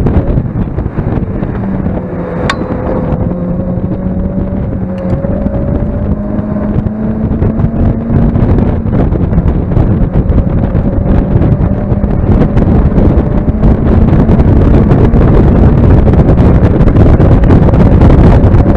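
Mazda MX-5 engine pulling hard on track, its note climbing slowly over the first several seconds and then holding, mixed with heavy wind buffeting on the microphone. There is a single sharp click about two and a half seconds in, and the sound grows louder near the end.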